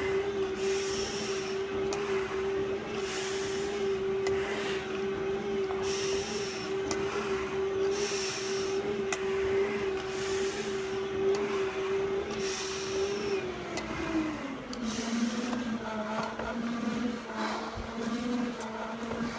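Stair-climbing machine motor humming steadily, its pitch dropping about 13 to 14 seconds in as the machine slows. Over it comes a firefighter's breathing through a full-face respirator mask, a short hiss at each breath about every two seconds, until about 15 seconds in.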